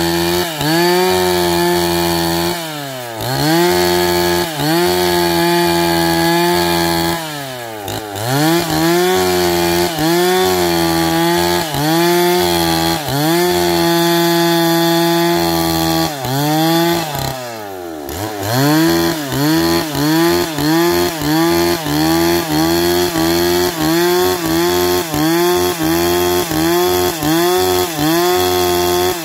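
Two-stroke chainsaw cutting into a log. The engine runs at full throttle in long stretches and drops to idle and revs back up three times. Through the last ten seconds the revs dip and climb again about once a second as the saw works in the cut.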